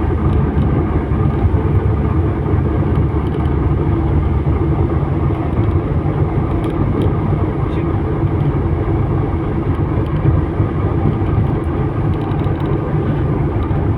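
Heavy rain falling: a loud, steady, dense hiss, strongest in the low end.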